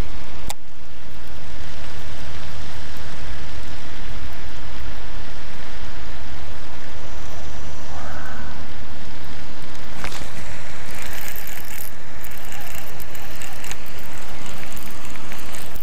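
Wind buffeting the microphone in a steady, loud rush with a low rumble, over a fishing reel being wound in as a swimbait is retrieved. There is a sharp click about half a second in and another around ten seconds, and crackly high-pitched noise after that.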